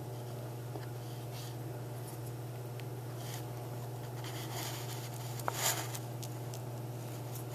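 A baby opossum eating: faint scratching and small chewing and scrabbling noises, with a louder scrape about five and a half seconds in, over a steady low hum.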